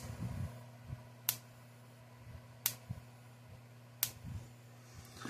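Gallagher S17 electric fence energizer circuit board pulsing: a sharp tick with each discharge, four times at an even beat of about one every 1.4 seconds, over a faint low hum. The steady pulsing is the board working as it should.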